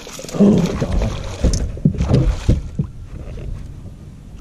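A hooked bass thrashing and splashing at the water's surface, with irregular splashes and knocks for about two and a half seconds before it quiets down.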